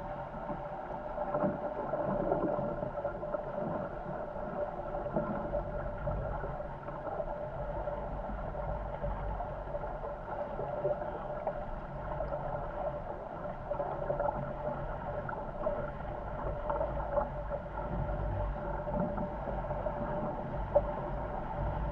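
Water rushing past the hulls of a Corsair F-24 MKII trimaran sailing fast, with wind rumbling on the microphone and a steady hum running through it. One brief sharp knock near the end.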